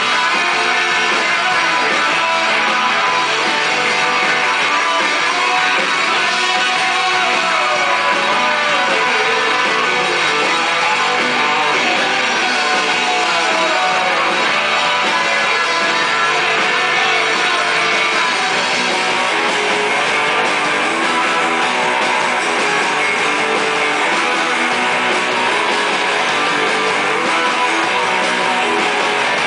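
Live rock band playing loud and steady, with electric guitars, bass guitar and drums.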